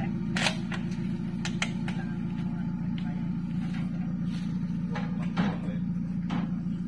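An engine idling steadily, with a few sharp metallic knocks and clicks scattered through it.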